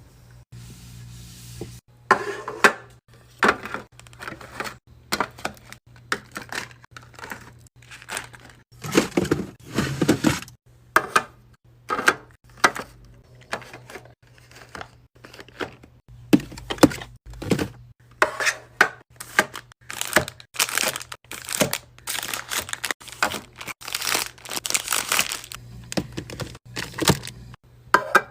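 Plastic packaging crinkling and tearing, with items clacking and tapping as they are set down one after another, typical of a fridge being restocked; a faint steady hum sits underneath.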